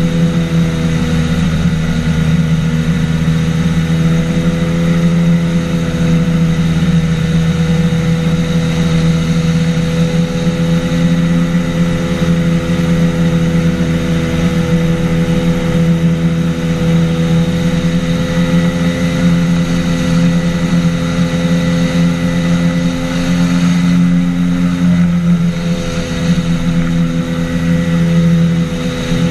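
Engine and propeller of an ultralight flying boat in flight: a loud, steady drone, its note shifting slightly near the end.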